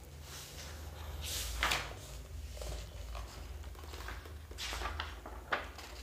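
A few short rustling and scraping sounds of something being handled, over a low steady hum.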